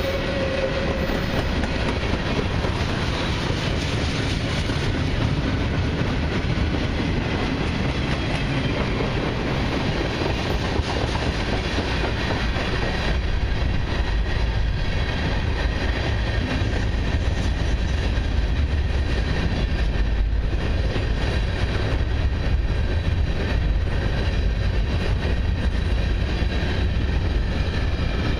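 Freight cars of a long mixed freight train rolling past: steady rumble and clatter of steel wheels on rail, with a faint high-pitched ringing above it.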